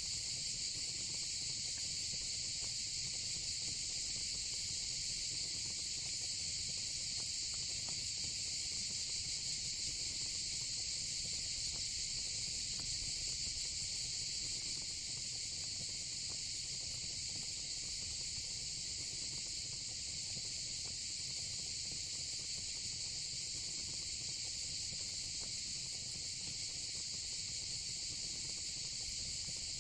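Steady, unbroken high-pitched chorus of insects, with a faint crackle of a fire pit underneath.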